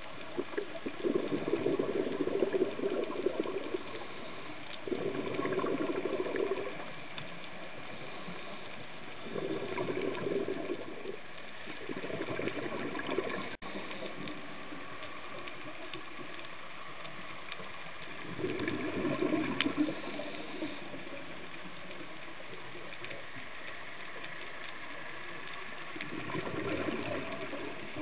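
Scuba diver breathing out through a regulator underwater: six bubbling rushes, each one to three seconds long, a few seconds apart, over a steady faint underwater hiss. One sharp click about halfway through.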